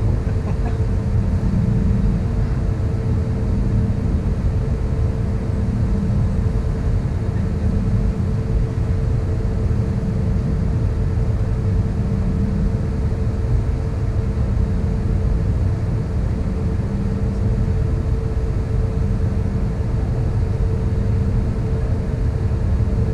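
Steady cabin noise of an Airbus A320neo standing still on the ground with its engines idling, heard from inside the cabin: an even low rumble with a steady hum.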